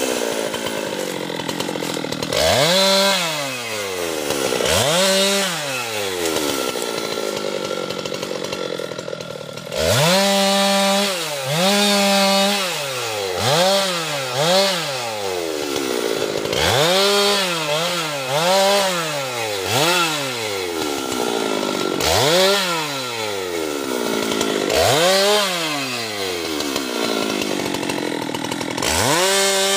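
Husqvarna two-stroke chainsaw revved up to full throttle again and again, each time held for a second or so and then let back down to idle, about a dozen times, while cutting teak wood.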